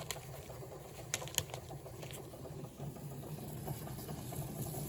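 Spiced water boiling in a pot, a steady fine bubbling, with four sharp clicks in the first couple of seconds.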